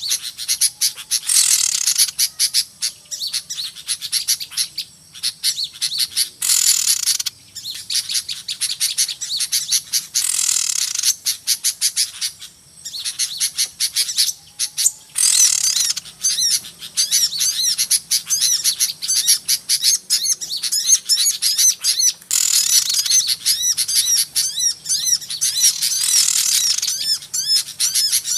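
Lure recording of many small songbirds chirping noisily at once: dense, rapid, high twittering throughout, broken every few seconds by harsher, rasping squawks about a second long.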